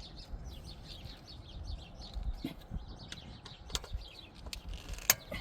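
Small birds chirping rapidly in a run of short high chirps, with two sharp clicks, the louder one near the end.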